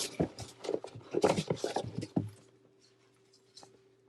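Paper rustling and crinkling as a folded instruction leaflet is handled and opened out. It stops about two seconds in, leaving a couple of faint clicks.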